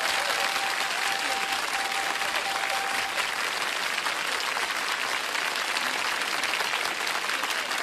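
Studio audience applauding steadily after a password is guessed on the first clue.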